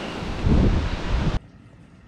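Strong wind buffeting the microphone with a deep rumble, a harder gust about half a second in. It cuts off suddenly just before the end, leaving only a faint hiss.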